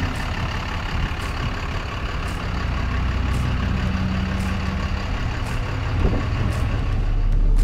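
Truck engine idling steadily with a low hum, and faint high ticks about once a second.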